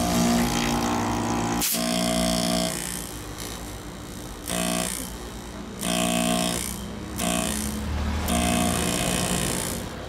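A rotary air-conditioner compressor running on a bench test. It makes a steady motor hum with air hissing from its open pipe stubs, and the sound drops away and comes back several times in the second half.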